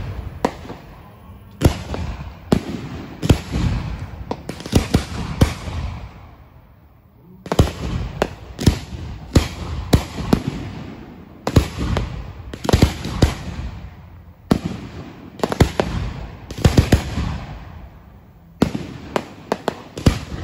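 Fireworks going off: a run of sharp bangs in clusters roughly a second apart, each fading out in a crackling tail, with a short lull about six seconds in.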